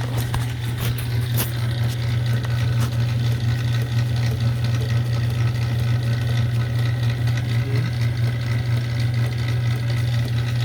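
Lathe running steadily, a constant deep hum with a fainter higher whine, with a couple of light clicks in the first second and a half.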